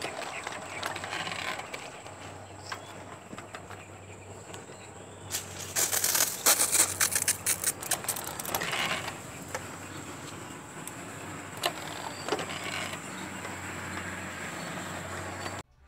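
Stainless steel backpack sprayer being worked by hand: clicking and rattling from its pump and wand, densest in a spell of about four seconds near the middle. Footsteps on dry straw can be heard during the first couple of seconds.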